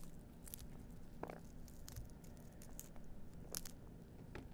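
Fingers prising pomegranate arils loose from the white pith and membrane, giving a few faint, separate crackles and snaps as the seeds break free and drop onto the pile.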